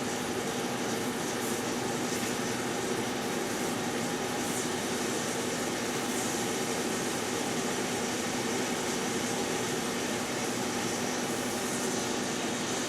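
GE Dual Wave microwave oven running with a steady hum while it heats a plate of cherries.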